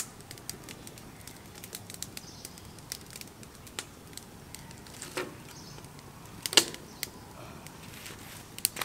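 Wood fire crackling in a metal box grill, with many small scattered pops and two sharper cracks about five and six and a half seconds in.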